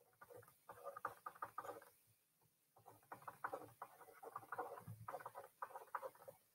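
Faint quick tapping and scratching of a stylus on a tablet screen during handwriting. The clicks come in two runs, with a pause of about a second in between.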